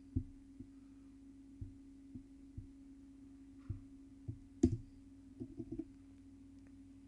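Scattered clicks of a computer mouse and keyboard, about a dozen in all, the loudest a sharp click about four and a half seconds in, followed by a quick run of clicks. A steady low hum runs underneath.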